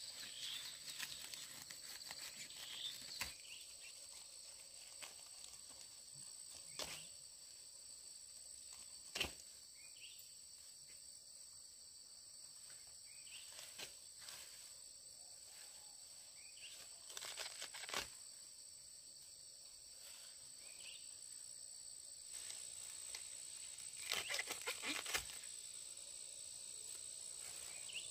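Insects droning steadily at a high pitch, with a few scattered sharp knocks and clicks, a quick cluster of them near the end.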